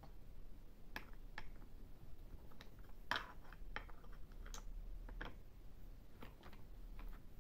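Plastic parts of a toy construction truck clicking and clacking as small hands pull and handle them: scattered light clicks, about ten, the loudest a little past three seconds in.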